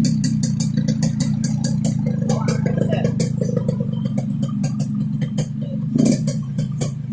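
Yamaha RX-King two-stroke single-cylinder motorcycle engine idling through a 'ngorok' (snoring) exhaust, a steady low running note with rapid, irregular sharp ticks over it, settling just after a rev has died away.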